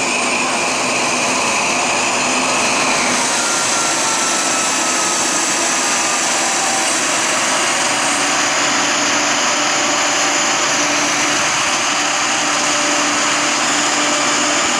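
Diesel engine of a Trenitalia D.445 locomotive running steadily just after start-up, a loud continuous mechanical noise. A high tone in it stops about three seconds in.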